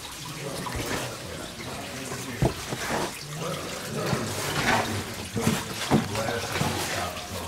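Water trickling among wet rocks in a slot cave, with scuffing footsteps and a few sharp knocks from someone scrambling over the rock.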